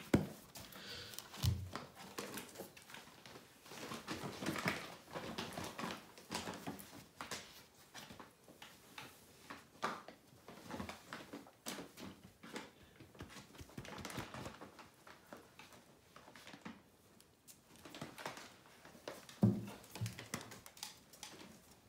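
Large paper sack rustling and crinkling as a small dog noses and pushes its head into it, with scattered clicks of dog claws on a hard floor. A louder scuffle in the bag comes near the end.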